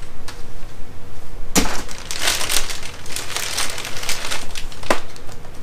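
Stiff clear plastic lure packaging crinkling and crackling as it is handled. It starts with a sharp knock about a second and a half in and ends with a click near the end.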